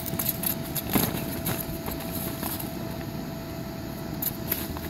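A puppy's paws knocking and scuffling on the vinyl of a partly deflated inflatable bounce house: a few scattered knocks, the loudest about a second in, over a steady low hum with one faint constant tone.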